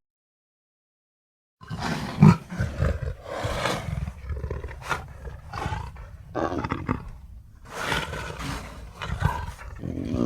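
Smilodon sound effect: a run of big-cat roars that begins about a second and a half in, rising and falling in a string of loud calls.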